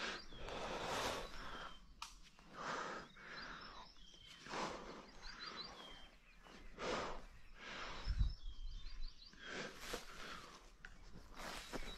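Rustling swishes of someone walking through tall grass, one every second or two, with small birds chirping throughout.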